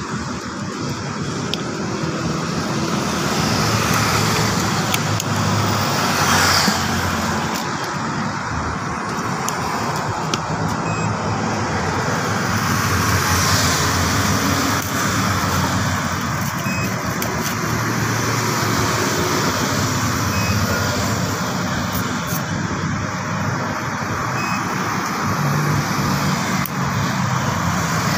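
Steady road traffic noise: vehicle engines rumbling in the background, swelling in loudness a few times.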